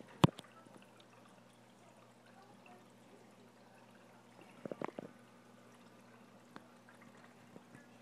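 Faint, steady running and trickling water of a large aquarium's filtration, over a low hum. There is a sharp click about a quarter second in, and a short cluster of small clicks around the middle.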